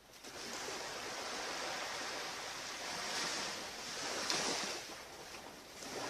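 Ocean surf breaking and washing up a beach as a steady rushing hiss that swells to its loudest a little past the middle and eases off near the end.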